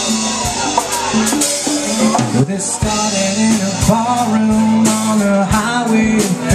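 Live rock band playing: electric guitars, bass guitar and drum kit, with steady drum hits under a sustained bass line.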